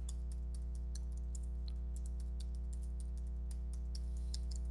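Computer keyboard typing: quick, irregular keystroke clicks as a password is typed into two fields, over a steady low electrical hum.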